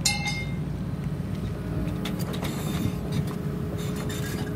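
Heavy diesel construction machinery running steadily with a low rumble, a sharp metallic clank that rings briefly near the start.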